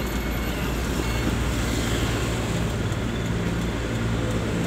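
Delivery truck's engine running, heard from inside the cab: a steady low hum that gains a steady low tone about a second in.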